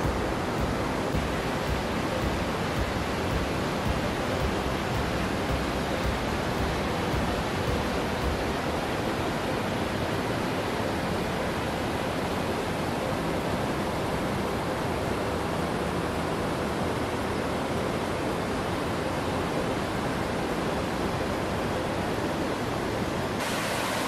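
Steady rush of a rocky mountain stream's water pouring over and between boulders, an even, unbroken noise; near the end it turns suddenly brighter and hissier.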